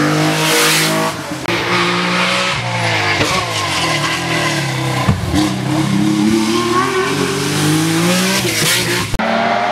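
Historic rally cars driving hard through a bend, one passing at the start and another about eight seconds in. Their engines rev up and down in repeated rising and falling sweeps as the drivers brake, change gear and accelerate away.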